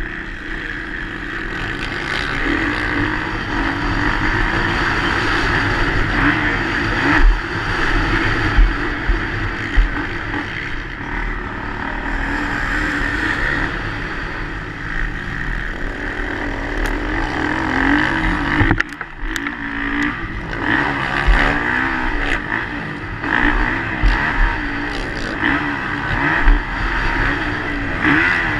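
Motocross bike engine revving hard and rising and falling with the throttle as it is ridden around a dirt track, with a few sharp knocks from bumps. About two-thirds of the way through, the engine briefly drops off before pulling again.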